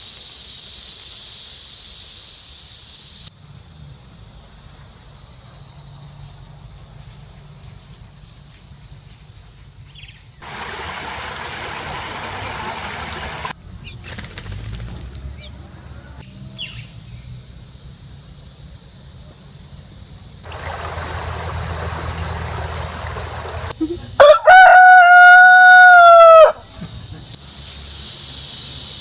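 Outdoor sound cut together from several shots, changing abruptly: a high, steady buzzing insect chorus at the start and end, stretches of even rushing noise in between, and a rooster crowing loudly once, about 24 seconds in, its call falling away at the end.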